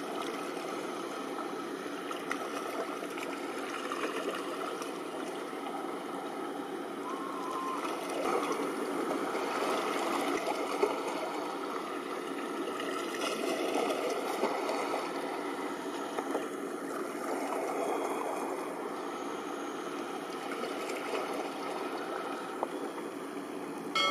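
Steady river noise of water washing and a passing offshore supply ship, swelling a little in the middle. A short bell-like ding comes right at the end.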